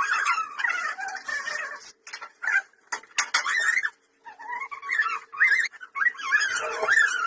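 A bird chirping and warbling in quick, wavering phrases, with two short pauses, over a faint steady hum.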